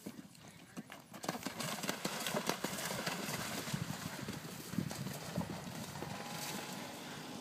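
Galloping horse's hooves striking and splashing through shallow water at a cross-country water jump, with a run of quick hoofbeats. The sound starts abruptly about a second in.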